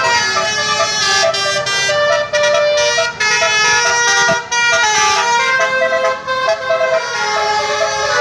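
Bus telolet horn, a set of multi-tone air horns, playing a tune in a run of short changing notes, broken by a few brief gaps.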